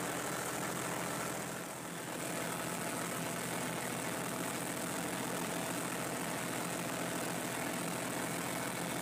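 Farm tractor engine running steadily under load as it pulls a belt-driven brush mower through the crop, heard from the driver's seat, with a brief slight dip in loudness about two seconds in.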